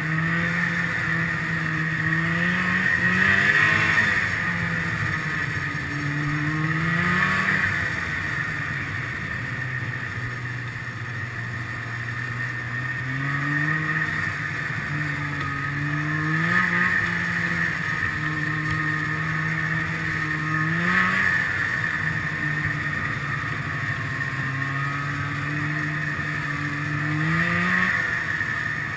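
Snowmobile engine running at speed, its pitch climbing with the throttle and dropping back about six times, with a steady high whine and rushing noise underneath.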